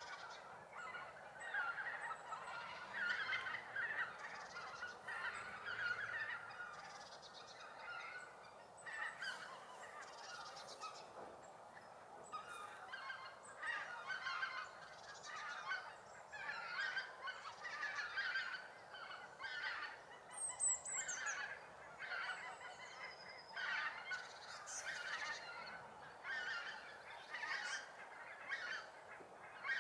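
Flock of greater white-fronted geese calling, many short high calls overlapping in a continuous chatter that swells and fades, with a brief higher falling call about twenty seconds in.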